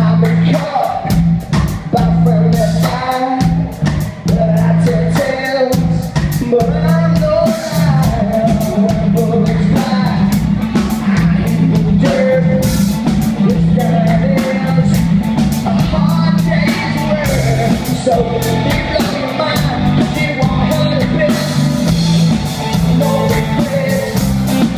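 Live rock band playing loud: a man singing lead over electric guitar and a drum kit, with steady drum hits.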